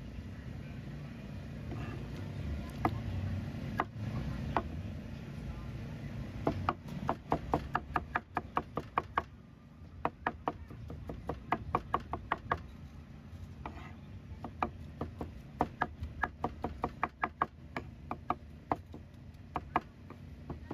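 Cleaver chopping braised pork carnitas, skin and offal on a plastic cutting board: a few single chops at first, then fast runs of about four to five sharp knocks a second with short pauses. A low steady rumble runs underneath.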